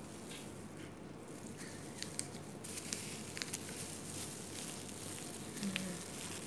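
Quiet handling sounds: disposable plastic gloves and paper food wrappers rustling, with a few small, scattered clicks and crinkles.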